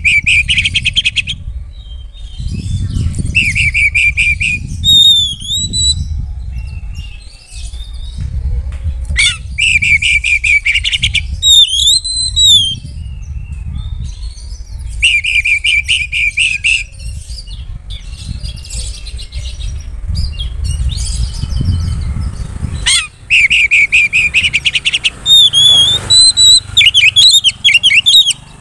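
Oriental magpie-robin singing loudly in repeated phrases: rapid buzzy trills alternate with slurred whistled notes that rise and fall, with short pauses between phrases, over a low rumble.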